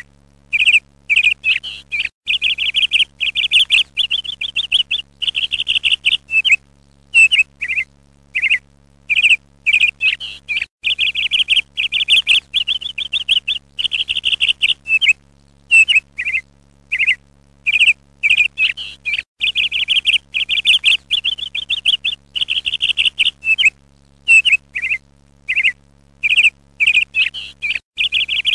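A songbird chirping and singing fast trilled phrases, in repeated bursts with short pauses, over a faint steady low hum.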